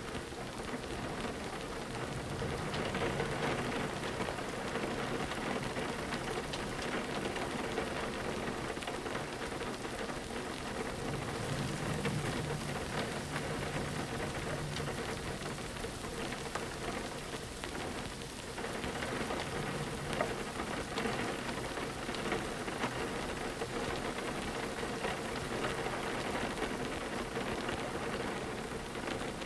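Steady rain pattering on a windowpane, a dense even hiss of drops. A soft low rumble swells under it twice, a few seconds in and again near the middle.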